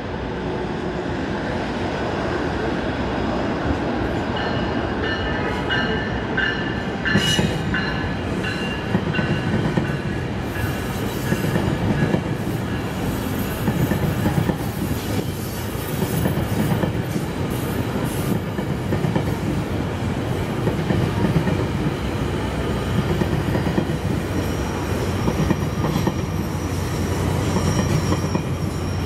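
GO Transit bilevel commuter train passing at speed: a steady rumble of steel wheels with rapid clickety-clack over the rail joints. Brief wheel squeal about six to nine seconds in, and a faint high squeal near the end.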